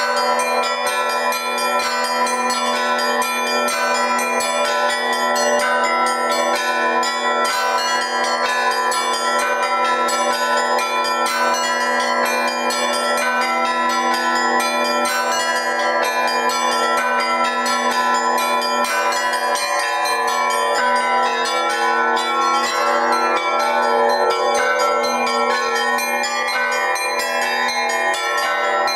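Russian church bell ringing (zvon) on a tower set of bells cast by Fyodor Dubrovishin. Quick, dense strokes on the small bells ring over the continuously sounding larger bells in a steady, unbroken peal.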